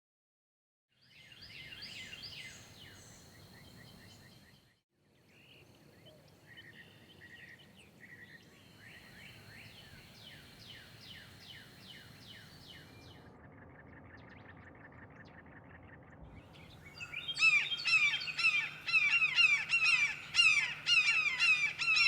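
Wild birds calling and singing in several abruptly cut stretches: high chirps and songs, then a steady fast trill. About seventeen seconds in, a much louder chorus of many rapid, repeated calls from a flock begins.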